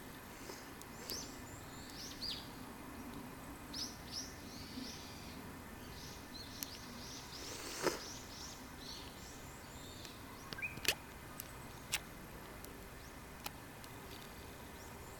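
Small birds chirping in quick, short notes over a steady outdoor background, with a few sharp clicks in the second half.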